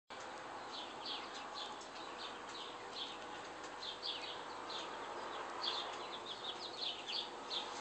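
Birds chirping: many short, high, falling chirps, several a second and irregular, over a steady background hum.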